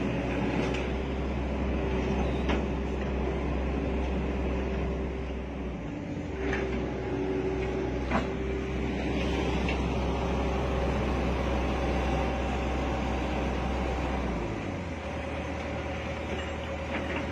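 Hydraulic excavator diesel engines running steadily, with a few short knocks. The low engine note shifts about six seconds in and again near the end.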